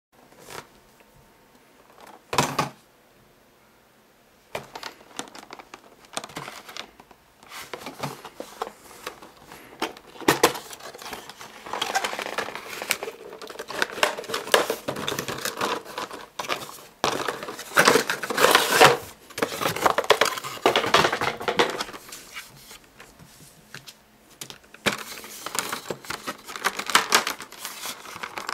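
Clear plastic packaging of a Logitech G400 mouse being handled and pried open: crinkling and crackling in uneven bursts, with many sharp clicks. One knock comes about two seconds in, and the handling starts about four seconds in.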